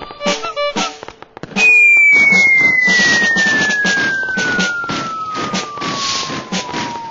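A loud single whistle tone that starts about a second and a half in and glides steadily down in pitch for about five and a half seconds. Underneath it runs a steady beat of noisy drum-like hits, about two a second.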